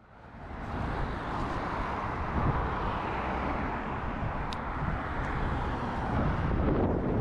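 Steady rushing wind on the microphone mixed with the rolling noise of a bicycle being ridden, fading in over the first second.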